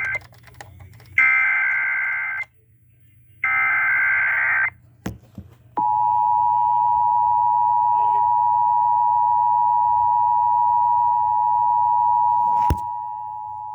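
Emergency Alert System activation. The end of one SAME digital header burst is followed by two more buzzy data bursts, each about a second long. Then comes the EAS two-tone attention signal, a steady dual-tone beep held for about eight seconds, which signals that an emergency warning is about to be read.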